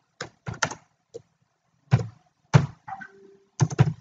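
Typing on a computer keyboard: single keystrokes at irregular intervals, then a quick run of keys near the end.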